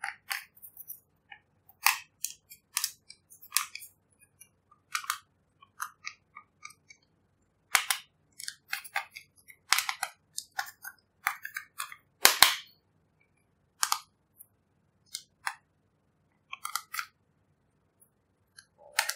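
Irregular sharp clicks and small cracks of a plastic spatula scraping and prying pressed eyeshadow out of a plastic palette over slime, with handling of a plastic glitter bag; the loudest crack comes about twelve seconds in.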